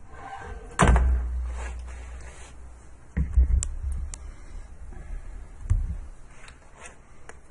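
Handling noise: three heavy thumps with a deep rumble that fades after each, about a second in, just after three seconds and near six seconds, with a few light clicks between them.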